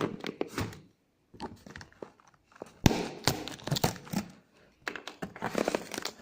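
A sealed cardboard product box being torn open, its seal and packaging tearing and crinkling in several spells, with one sharp knock about three seconds in.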